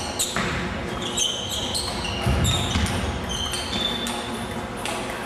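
Table tennis rally: a celluloid ping-pong ball clicking off the bats and the table in quick succession, about two hits a second, each with a short echo.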